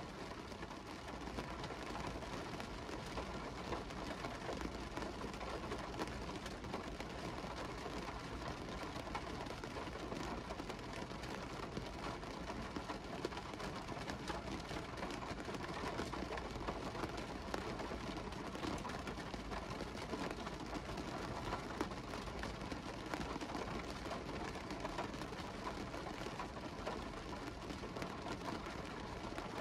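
Steady rain falling on a car window, many individual drops ticking over a continuous wash of rain noise.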